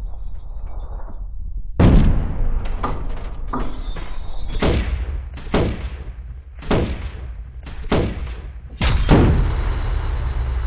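Heavy machine-gun shots, about ten, spread irregularly half a second to a second apart rather than in one continuous burst, each trailing off in a ringing echo over a steady low rumble. The loudest come about two seconds in and near the end.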